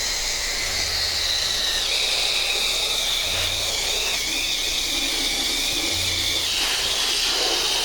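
Pressure washer spraying water in a steady hiss, with a wavering high whistle that drops in pitch about two seconds in and fades out near the end.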